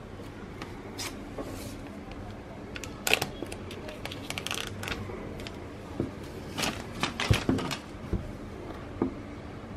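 Handling of an iPhone 11 box and its packaging: scattered clicks and taps with short stretches of rustling, and a few sharper knocks around the middle.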